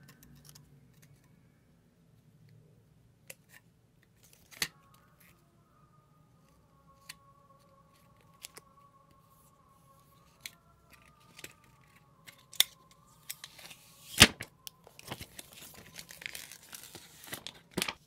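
A new iPhone 7 Plus handled in the hands: scattered taps, clicks and rubbing of fingers on its aluminium body and glass front, the loudest click about 14 seconds in. The sounds come thicker and more crinkly in the last few seconds.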